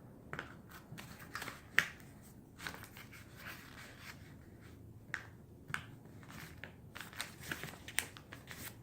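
A sheet of paper being handled, folded and creased by hand: faint scattered rustles and crinkles with short sharp crackles, the sharpest a little under two seconds in.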